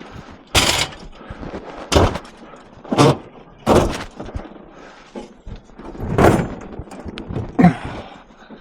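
Scrap metal being handled and loaded onto a truck: about six separate heavy knocks and thuds, spaced a second or so apart.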